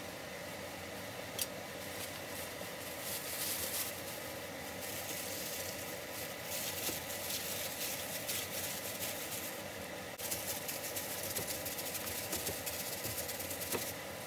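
Disposable plastic glove crinkling and raw beef squishing wet as a gloved hand kneads sliced beef with marinade in a stainless steel bowl, over a steady low hum. A spoon clinks against the bowl once about a second and a half in.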